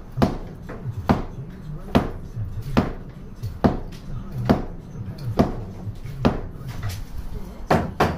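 Hand hammer striking the brick wall in even knocks about once a second, with a quick run of lighter blows near the end.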